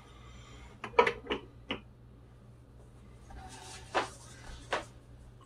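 Hard plastic clicks and knocks as a reel of solder is fitted onto the soldering station's side reel holder: a quick cluster of clicks about a second in, then rustling handling and two more sharp clicks near the end.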